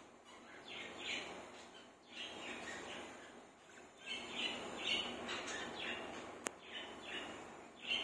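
Budgerigars chattering in short chirps, a burst every second or so, with a single sharp click about six and a half seconds in.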